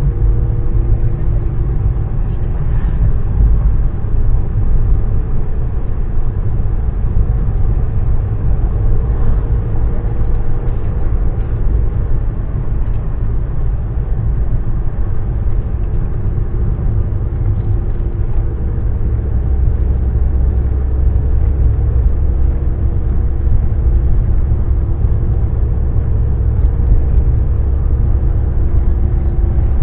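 Car cabin noise while driving: a steady low rumble of engine and tyres on the road, with a faint engine hum over it, heard from inside the car. The rumble grows a little heavier past the halfway point.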